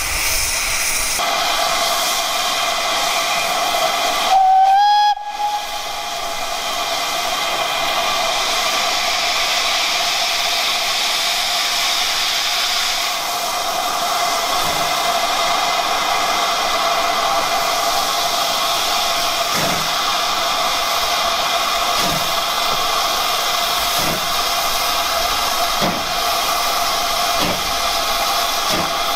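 GWR 4-6-0 steam locomotive No. 2999 'Lady of Legend' giving one short whistle blast, its pitch rising slightly, about four seconds in, over a steady hiss of escaping steam. In the second half, soft exhaust beats come roughly every two seconds and draw closer together as the engine starts away slowly.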